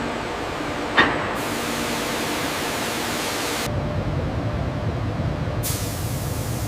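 Steady hissing industrial noise with a sharp metallic clink about a second in; the character of the noise changes abruptly several times, getting deeper and heavier about halfway through.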